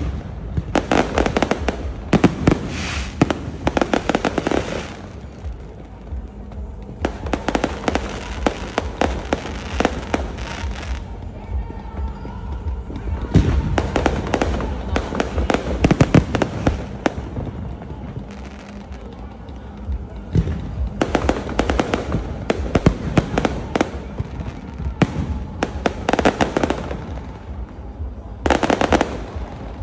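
Fireworks display: rapid volleys of shots and crackling bursts come in clusters a few seconds long, separated by short, quieter gaps.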